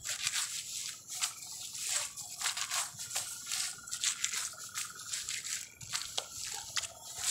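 A blade slicing under a mat of young rice seedlings in wet mud and the roots tearing free: a run of irregular crunching crackles and wet squelches.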